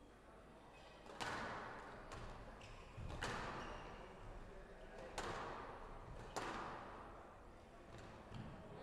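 Squash rally on a glass court: the ball struck by rackets and hitting the walls, four sharp, echoing hits about one to two seconds apart, the first about a second in.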